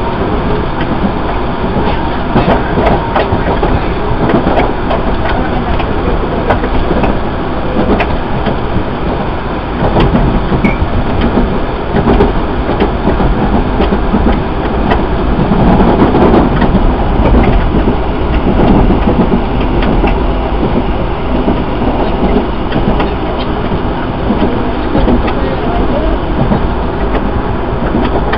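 Bombardier 01800-series Red Line subway car running at speed, heard from inside at the front of the car: steady wheel-and-rail running noise with scattered sharp clicks from the track. It grows louder about halfway through, then eases again.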